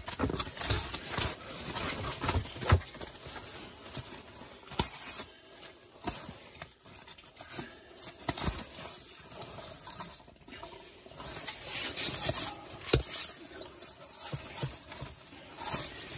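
Irregular light taps, knocks and rustling as a freshly landed whitefish is handled on the ice, with a few sharper knocks scattered through.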